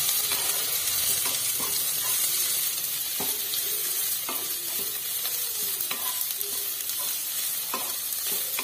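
Radish greens and garlic sizzling in hot mustard oil in a wok on high flame, stirred with a spatula that scrapes and knocks against the pan every second or two.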